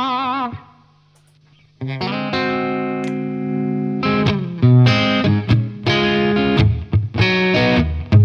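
Electric guitar played through an Origin Effects Revival Drive overdrive pedal: a Telecaster-style guitar into a VHT amp. A held note with vibrato dies away and there is a brief pause. About two seconds in a sustained chord rings out, followed by a series of short, choppy chord strums.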